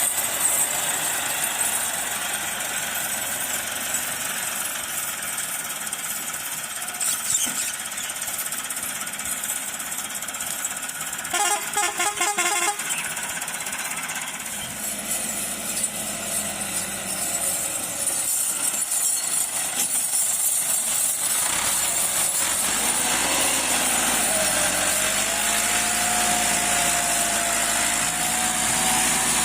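Farm machinery engine running with loud, steady mechanical noise. A short rapid rattling comes about twelve seconds in, and near the end a whine rises and then holds steady.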